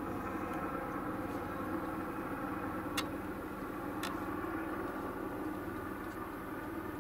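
Low-flying helicopter overhead, a steady drone of engine and rotor with a fluttering low end. Two short clicks come about three and four seconds in.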